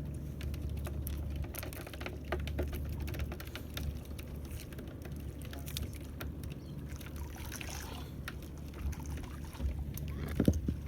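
Water trickling and lapping around a small fishing boat over a steady low hum, with scattered light clicks and one sharper knock near the end.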